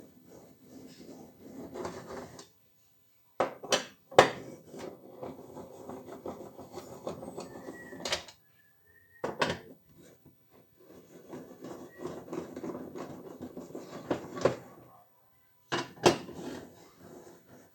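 Hand work on washing-machine parts: rubbing and scraping broken up by several sharp knocks and clinks of hard parts, with sudden silent gaps between stretches.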